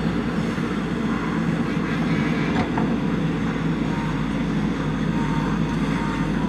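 Diesel engine of a JCB backhoe loader running steadily at an even, unchanging level.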